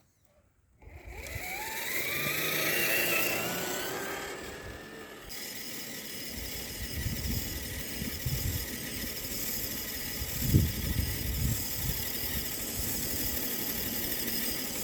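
Small electric motor of an RC crawler truck whining and rising in pitch for a few seconds. It then gives way to steady wind noise on the microphone, with a few low thumps.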